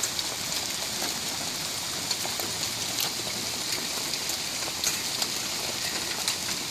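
Heavy rain pouring down in a steady hiss, with scattered sharp taps of drops striking close by.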